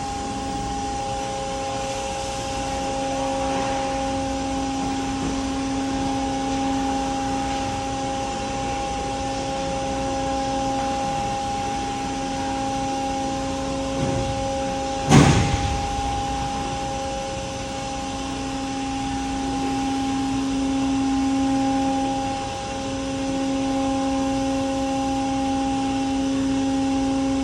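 Aircraft carrier's helicopter lift machinery running with a steady hum made of several held tones, and one loud clank about halfway through.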